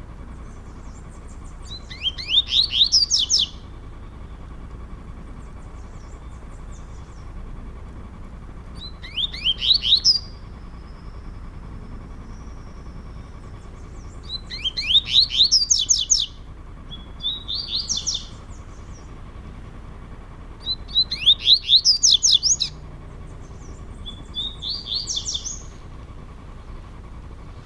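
Two male double-collared seedeaters (coleiros) singing competitively in turn. Each song is a short, loud, rapid phrase of repeated notes lasting about a second, six phrases in all, a few seconds apart.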